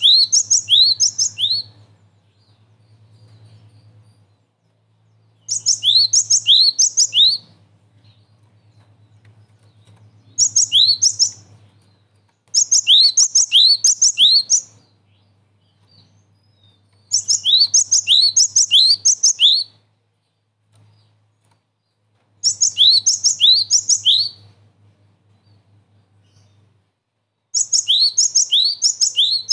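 Cinereous tit (gelatik batu) singing in short bouts of quick repeated two-part notes, each a high note followed by a rising whistle, about seven bouts with pauses of a few seconds between them. A faint low hum runs underneath.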